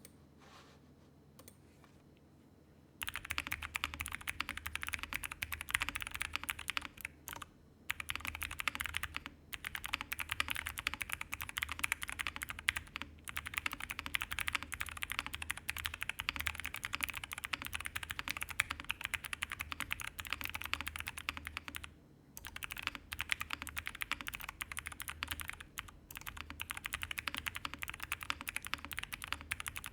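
Continuous typing on a Freya Ultra mechanical keyboard with Gateron Melodics switches and GMK Norse keycaps, on a half-plate with all foams fitted. A dense run of keystrokes starts about three seconds in and goes on with a few brief pauses.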